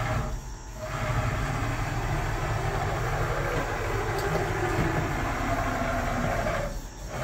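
Haas VF0 vertical machining center's table traversing under its servo axis drive: a steady mechanical rumble with a low hum, pausing briefly shortly after the start and again near the end.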